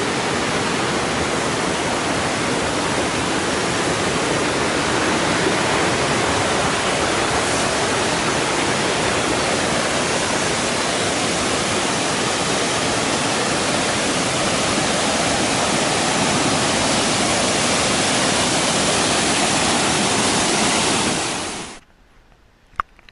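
Steady rushing of waterfalls and cascading water. It cuts off suddenly near the end to a much quieter background with a couple of small clicks.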